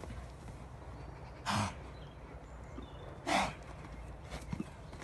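A Paint stallion snorting twice, each a short, loud blow of air through the nostrils, nearly two seconds apart.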